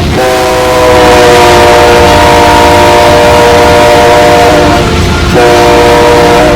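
Diesel locomotive's multi-chime air horn sounding at a grade crossing: one long chord-like blast, a brief break, then a shorter blast near the end, over the low rumble of the train.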